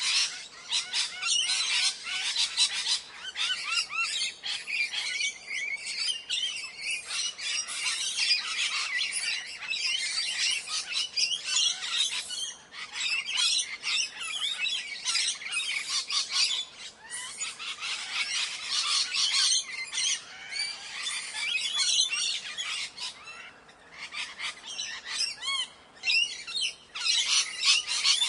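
Ringneck parrot calling: a rapid, nearly continuous run of high-pitched squawks and chirps, with a few short breaks.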